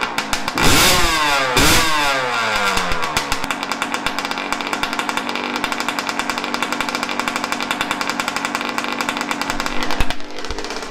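Yamaha YZ125 two-stroke dirt bike engine just after a kick start: the throttle is blipped twice, the revs falling away after each, then it settles into a steady, even idle, running on a 40:1 premix. A thump near the end.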